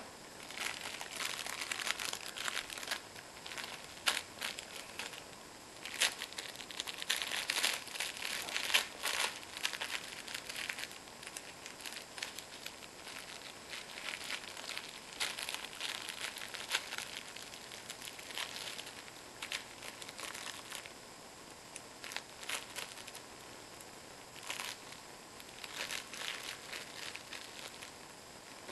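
Crinkle filling inside a plush dog toy crinkling in irregular bursts as a puppy chews and paws at it, busiest between about six and eleven seconds in.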